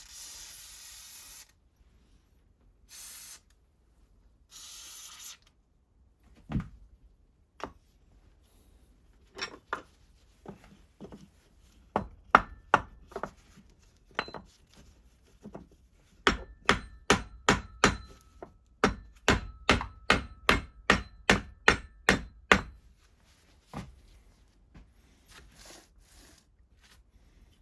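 Three short hissing bursts of aerosol spray, then a hammer tapping on the leather splitter's metal parts. The taps are scattered at first, then turn into a steady run of about three strikes a second, each with a faint metallic ring, before slowing again near the end.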